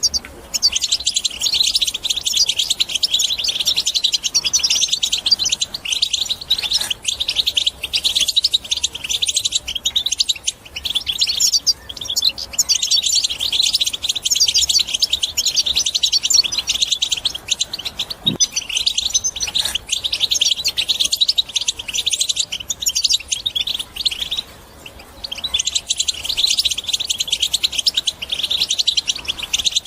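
European goldfinch singing: rapid, dense twittering in long phrases broken by a few brief pauses.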